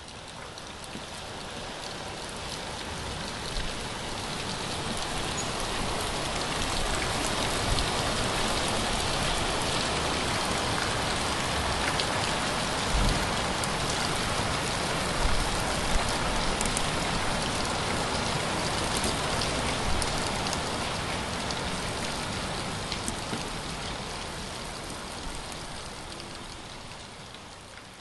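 Very heavy downpour of rain: a dense, steady hiss of rain with a few sharper splashes of drops. It swells up over the first few seconds and fades away near the end.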